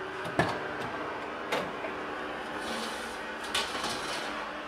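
Kitchen clatter: three sharp knocks and clanks of metal equipment, the loudest about half a second in, over the steady hum of kitchen ventilation.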